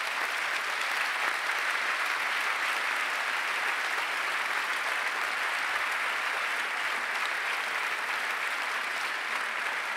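Audience applause in a large hall, steady and sustained throughout.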